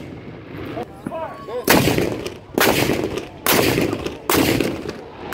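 Civil War field cannons firing one after another: four booms under a second apart, each trailing off in a long rumble.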